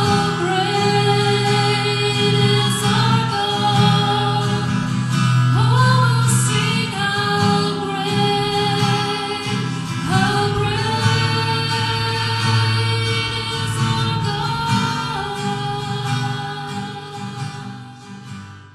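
Gospel worship music: voices singing long held notes over instrumental accompaniment, fading out near the end.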